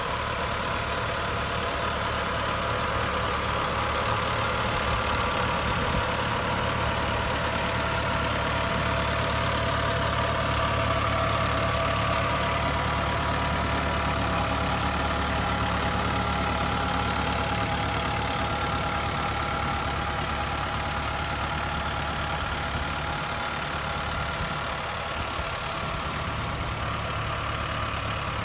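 Mahindra tractor's diesel engine running steadily under load as it drives a rotavator and potato planter through the soil, with a steady whine over the engine note. It grows a little louder toward the middle as the tractor passes, then eases off.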